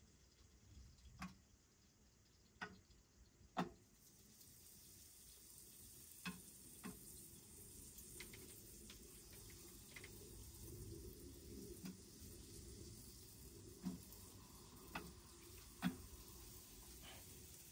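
Food sizzling faintly on the hot top plate of a wood-burning tent stove, the hiss setting in about four seconds in and building, with scattered sharp clicks and taps on the metal.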